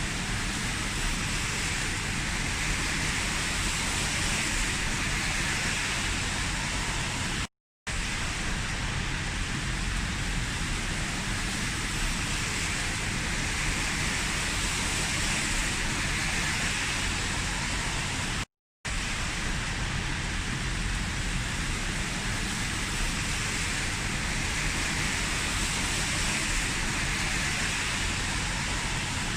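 Heavy rain falling steadily, an even hiss. It cuts out to silence for a split second twice, about a third and two thirds of the way through.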